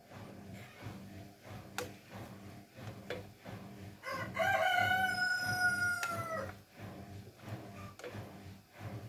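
A rooster crowing once, about four seconds in: a few short broken notes, then a long held note that falls slightly at the end.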